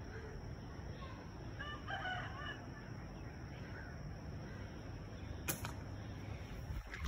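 A rooster crowing faintly, one crow of several linked notes about two seconds in, over a steady low background hum.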